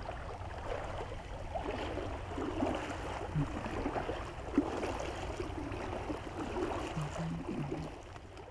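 Strong tidal current rushing and gurgling past an underwater camera, with small irregular gurgles. It fades out near the end.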